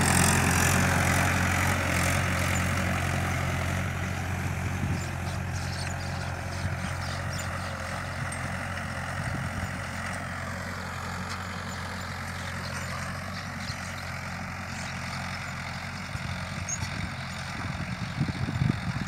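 Tractor engine running steadily with a low, even drone while pulling a harrow, fading over the first several seconds as it moves away, then holding steady, with a few irregular knocks near the end.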